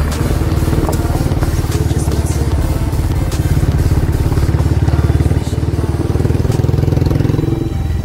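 Motorcycle engine running steadily and loudly, then dropping away just before the end.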